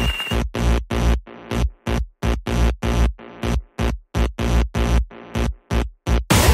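Electronic background music in a stripped-back stretch: short chopped synth stabs, about three a second, with silent gaps between them.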